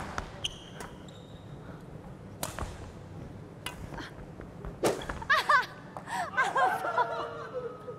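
Badminton rackets striking a shuttlecock during a rally: sharp smacks every second or so. In the second half comes a cluster of short, high squeaks.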